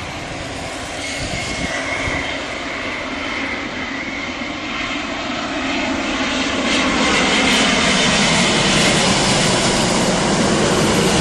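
Jet airliner on landing approach passing close overhead: steady engine noise with a faint high whine early on, growing steadily louder over the seconds.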